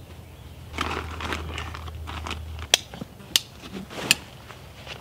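Rustling of clothing and a canvas backpack being handled, followed by three sharp clicks about two-thirds of a second apart.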